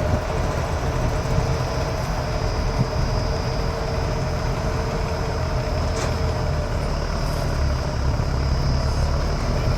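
Rice combine harvester running steadily: a constant low engine rumble with a steady high whine above it.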